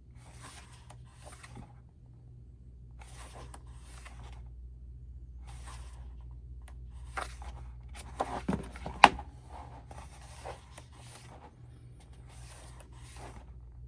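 Pages of an album photo book being turned by hand: short paper swishes every second or two, with a sharper tap about nine seconds in. A steady low hum runs underneath.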